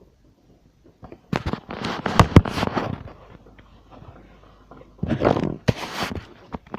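Fireworks going off: a rapid cluster of sharp bangs and crackling starting about a second in, then a second, shorter cluster about five seconds in.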